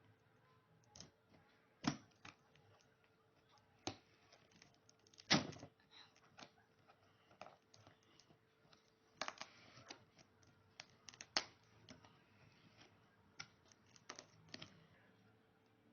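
Irregular clicks, taps and knocks of a product box and its packaging being handled and opened, with a few louder knocks among softer rustles and a faint steady hum underneath.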